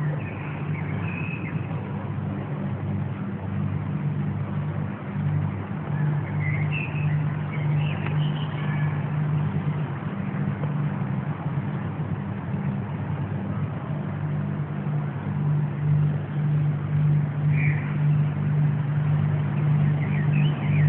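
Steady low droning hum, wavering slightly, with a few faint short high chirps over it. This is the unexplained sky sound the uploader heard over the city for about ten minutes, recorded on a mobile phone.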